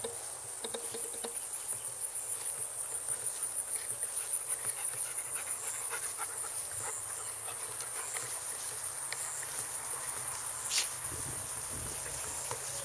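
Insects trilling, a steady high-pitched pulsing buzz, with scattered faint ticks and rustles and one sharper click a little before the end.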